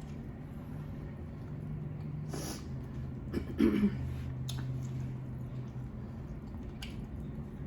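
Eating mouth sounds: a few wet clicks and smacks, a sharp breath through the nose about two seconds in, and a short, loud throat noise about three and a half seconds in.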